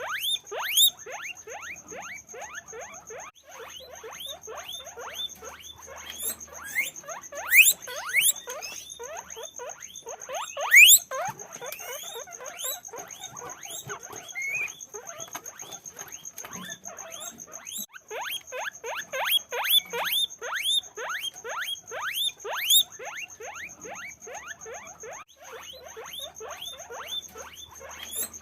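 Guinea pigs squeaking continuously, short rising squeaks several a second and overlapping, with a few louder squeals.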